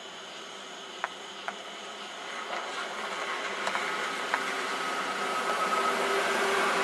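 A pickup truck driving up toward the microphone, its engine and road noise getting steadily louder. Two short clicks come about a second in.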